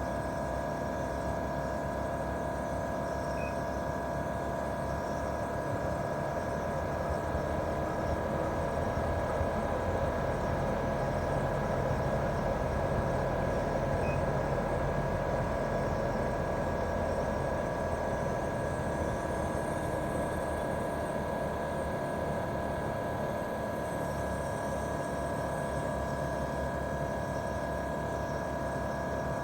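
Daikin R28RMV mini-split outdoor unit running in heating mode: its twin-cylinder swing compressor and fan make a steady hum with several high tones held on top. The hum grows a little louder partway through, then settles back.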